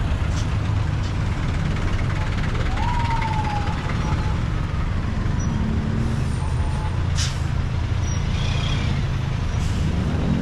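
Heavy road traffic of diesel trucks, a jeepney and cars crawling past close by, a steady low engine rumble. About three seconds in, a short high tone rises and then slides down, and there are a few brief hisses later on.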